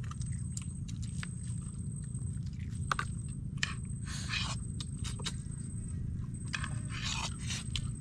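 People eating fried fish with their hands: chewing and crunching, with scattered clicks and scrapes, over a steady low rumble.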